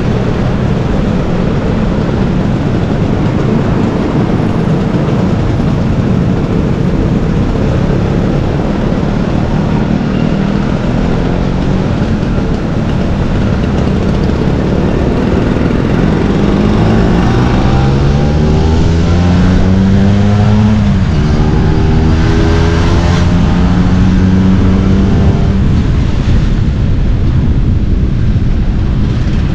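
Old Vespa scooter's two-stroke engine running on the move under heavy wind and road noise. About halfway through the engine note climbs as it speeds up, drops briefly, then holds steady.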